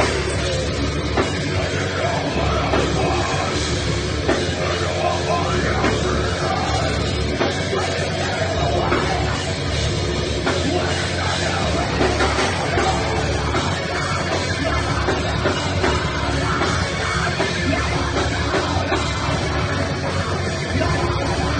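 Live heavy rock band playing with drum kit, in a dense, unbroken wall of sound.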